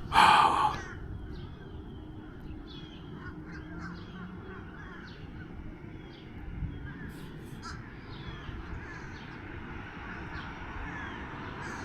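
A crow caws loudly once at the very start, then short high bird calls come and go over a steady low rumble of wind.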